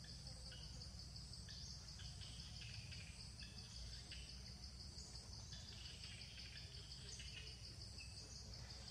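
Faint outdoor ambience: a steady, high, pulsing insect drone with scattered short bird chirps over it and a low rumble underneath.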